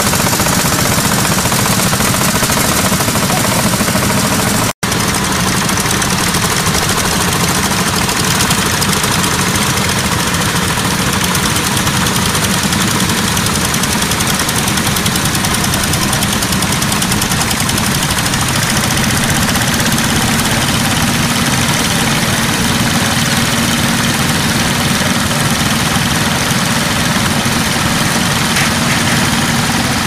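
Anzani Iron Horse walk-behind tractor engines running steadily under load while pulling ploughs, a fast continuous knocking beat. The sound breaks off for an instant about five seconds in.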